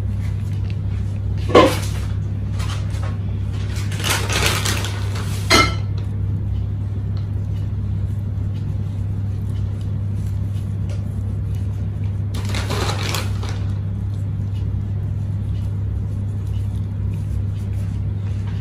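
Chopped pistachios and almonds being sprinkled and handled over a bowl of sheer khurma: three brief bursts of rustling and light clatter, about a second and a half in, from about four to six seconds in, and again near thirteen seconds. A steady low hum lies under it.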